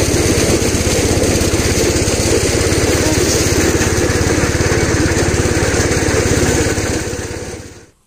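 A small engine running steadily with a fast, even beat and a broad mechanical rattle, fading out near the end.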